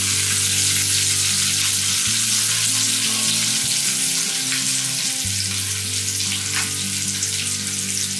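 Sliced onions and curry leaves frying in hot oil in an aluminium kadhai: a steady sizzle, with a wooden spatula stirring them through the pan.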